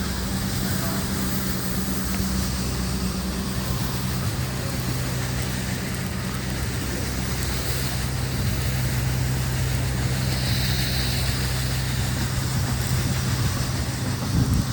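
A motor vehicle's engine running steadily, a constant low hum under an even hiss of city background noise.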